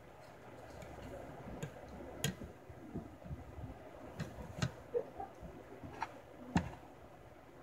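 Metal spoon and fork clinking and scraping against a ceramic plate while eating rice: about six sharp clicks a second or so apart.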